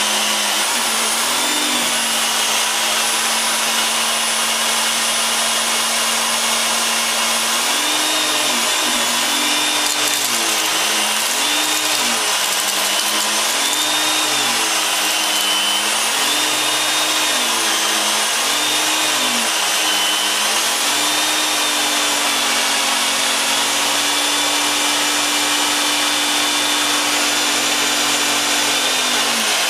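Vacuum cleaner running loud and steady. Its motor note rises and falls in a regular wave about every two seconds through the middle stretch, then holds at a higher pitch.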